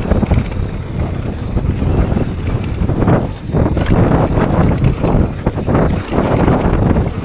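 Wind buffeting the microphone over the rumble of a mountain bike's tyres on a dirt downhill trail, with frequent short knocks and clatter from the bike jolting over bumps.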